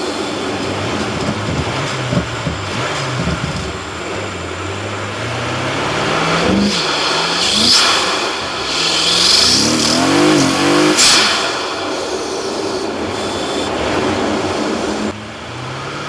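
BMW F90 M5's twin-turbo V8, fitted with aftermarket Lusso Performance intakes and mesh aluminium filters, accelerating hard twice with the revs climbing. Each pull carries a loud rushing intake swoosh at its peak. The second pull cuts off abruptly about eleven seconds in.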